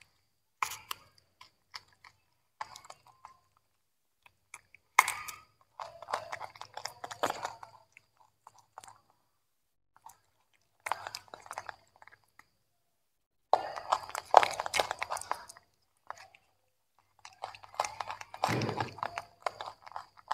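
Young macaques chewing broccoli and carrot: crisp crunching in bouts of one to three seconds, with silent pauses between.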